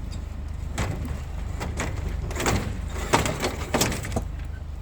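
A vehicle engine idling steadily, with irregular sharp knocks and clatters of scrap being handled.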